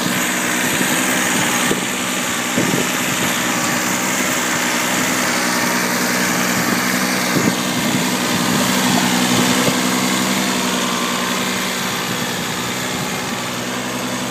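Kubota B6200D compact tractor's three-cylinder diesel engine running steadily under load, towing a trailer uphill through ploughed soil.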